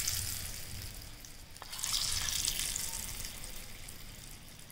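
Hot oil tempering of mustard seeds, dried red chillies and curry leaves sizzling as it is spooned onto coconut chutney. The sizzle fades, swells again about two seconds in, then dies down.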